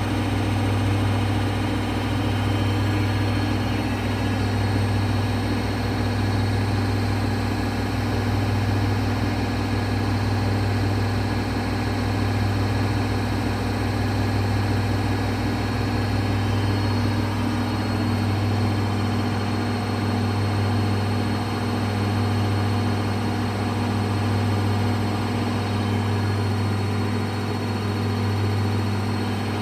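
Daewoo DWD-FT1013 washing machine on its 1000 rpm spin cycle: a steady, loud motor-and-drum hum whose level swells gently every few seconds.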